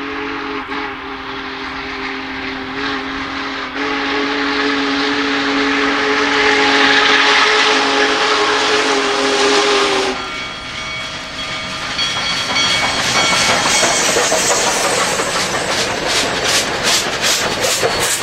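Union Pacific Big Boy 4014 steam locomotive's whistle blowing a long chord, with a brief break about four seconds in, over the rush of the passing engine; the whistle cuts off about ten seconds in. The train's cars then roll by, with a quick rhythmic clatter of wheels over the rails near the end.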